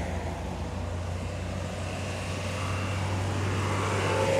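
Road traffic: a steady low engine rumble from passing vehicles, swelling a little near the end as one draws closer.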